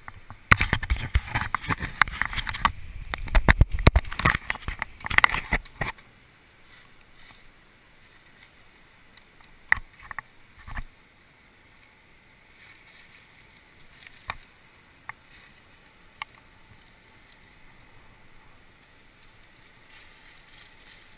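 Close rustling, scraping and knocking of a camera being handled for about five seconds, then a quiet stretch with a few isolated clicks.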